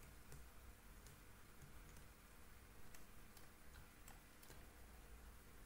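Near silence, with a few faint, scattered clicks and ticks from a computer mouse, its scroll wheel, and keyboard keys.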